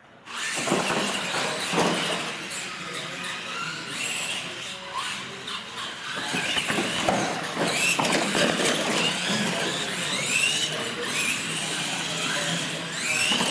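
Radio-controlled monster trucks racing on a smooth concrete floor: electric motors whining up and down in pitch as they speed up and slow, tyres squealing, and sharp knocks from bumps and ramp landings.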